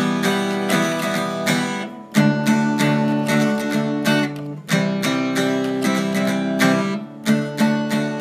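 Background music of an acoustic guitar strumming chords.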